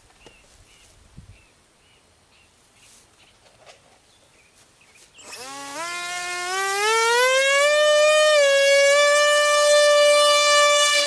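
Small brushless motor (a Sunnysky 2204 2300 kV) with a 5x4.5 bullnose propeller on a mini Popwing flying wing, throttled up for a hand launch. A loud whine starts suddenly about five seconds in, rises in pitch for about three seconds, then holds steady. Before it, faint chirping about twice a second.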